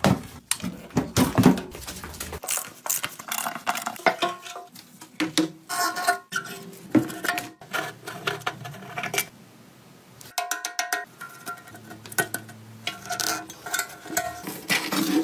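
Clinks, knocks and scrapes of hand tools and metal parts while an old motorcycle is dismantled, with a few short ringing metal tones among them.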